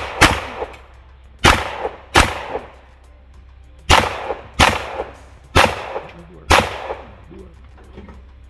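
Gunshots from a timed practical-shooting stage: about eight shots, fired in loose pairs half a second to a second apart, with a pause of a second or more between pairs.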